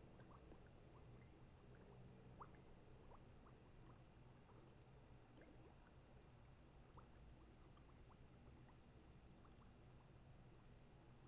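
Near silence: a faint steady room hum with scattered faint small clicks and ticks.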